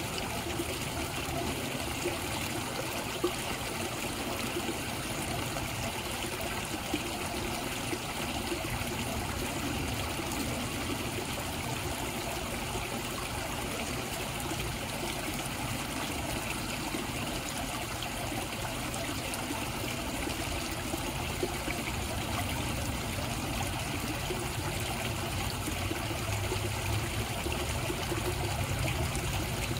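Water running steadily in a backyard koi pond, with an even flow that does not let up.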